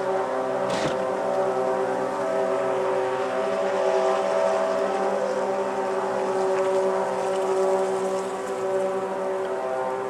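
Several ships' horns sounding at once, their steady held tones overlapping without a break, as a horn salute; a short knock about a second in.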